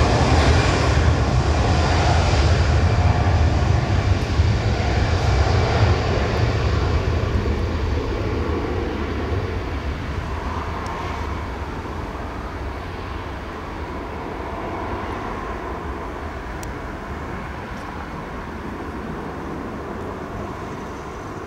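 Airbus A320's jet engines at takeoff thrust during the takeoff roll and lift-off: a loud, low rumble that fades steadily over the last half as the airliner climbs away.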